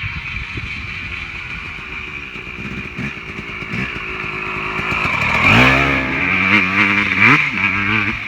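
Two-stroke KTM dirt bike engine idling, then revved hard about five and a half seconds in, with a few quick throttle blips before it drops back toward idle.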